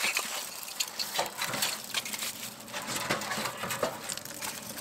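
Dry twigs being pushed into the open firebox of a small metal wood stove: irregular clicks, snaps and clatters of wood against metal, with the kindling fire crackling.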